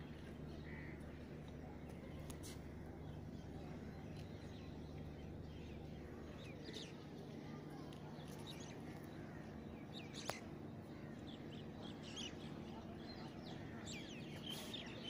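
Birds chirping over quiet outdoor ambience, the calls growing busier toward the end, with a faint low hum early and one sharp click about ten seconds in.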